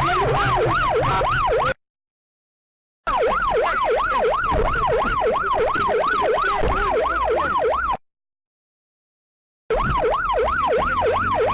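Electronic emergency siren in a fast yelp, its pitch sweeping up and down about three times a second. It cuts out to silence twice: once about two seconds in for just over a second, and again about eight seconds in for nearly two seconds.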